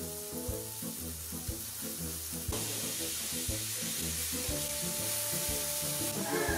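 A burger patty frying in a pan, sizzling steadily, over background music with a steady bass beat.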